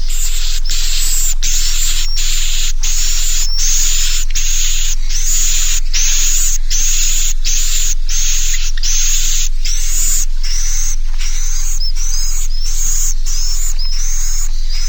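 Swiftlet roosting lure call ('suara inap') played back: a long, even series of short buzzy chirps, about one and a half a second, the later ones shorter, over a steady mains hum. It is the call swiftlet farmers play to get young swiftlets to stay and roost in the bird house.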